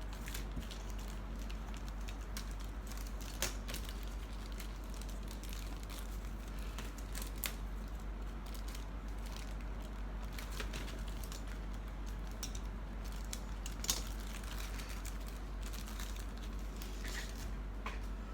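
Plastic bags of model-kit parts crinkling and rustling as they are handled, with scattered light plastic clicks over a steady low hum.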